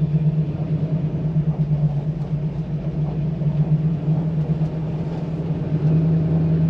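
1968 Chevrolet Camaro driving, its engine running with a steady low hum and road noise, heard from inside the cabin. The engine gets a little louder about six seconds in.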